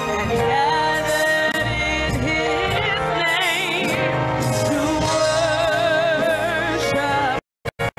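A woman singing a gospel song into a handheld microphone over musical accompaniment, her held notes wavering with vibrato. Near the end the sound cuts out to silence in several brief gaps.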